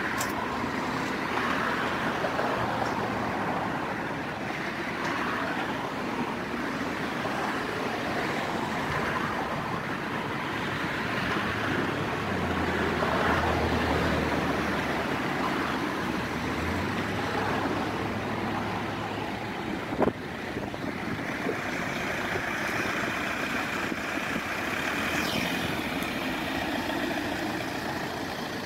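Steady road traffic noise from passing vehicles, with a low engine rumble that swells about twelve seconds in and fades a few seconds later. A single sharp click about twenty seconds in.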